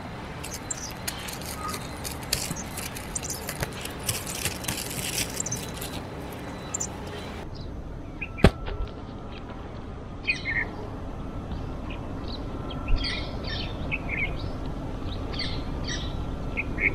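Rustling and clicking of camping gear being handled for the first several seconds, then a single sharp click, followed by scattered short bird chirps.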